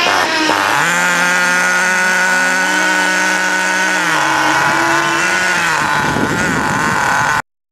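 Small SH .18 nitro glow engine of an HSP Camper 1/8 buggy running at idle on a rich break-in setting, a steady buzzing note. Its pitch dips about four seconds in and lifts briefly before settling, and the sound cuts off suddenly near the end.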